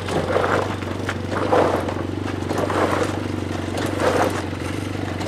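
Arctic Cat snowmobile engine running steadily, with gravel crunching and scraping under the sled in several short bursts as it is moved across the gravel driveway.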